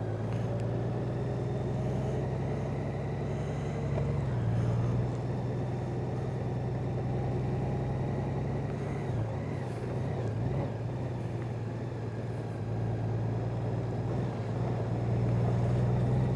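Honda Gold Wing motorcycle's flat-six engine running steadily at low speed as the bike rolls slowly along, a continuous low hum.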